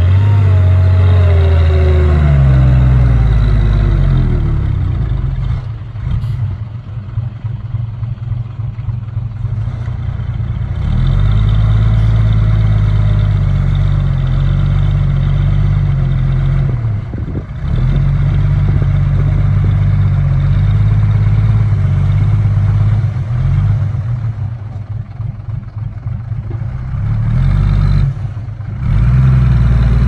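Small Komatsu bulldozer's diesel engine working, its pitch falling in the first few seconds. It then swells under load and eases back several times, heavy for long stretches and lighter in between.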